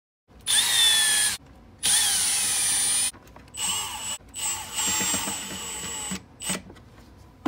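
Milwaukee cordless drill driving screws into 3D-printed plastic corner bumpers, running in about five bursts of a second or two each, with a brief last blip near the end.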